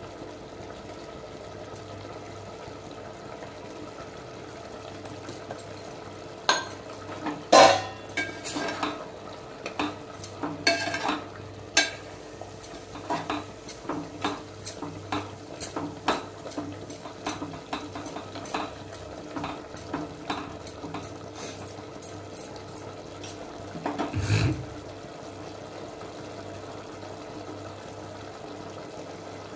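Steel slotted spoon stirring curry in an aluminium pot, scraping and clinking against the metal in an irregular run of strokes. The run is loudest a few seconds after it starts and ends with a heavier knock, over a steady low hum.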